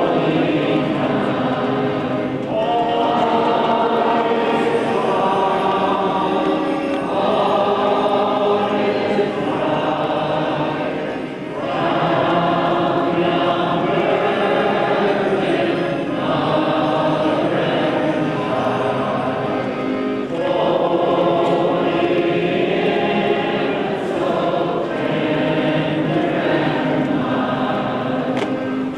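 A choir singing, in sustained phrases of a few seconds each with brief breaths between them.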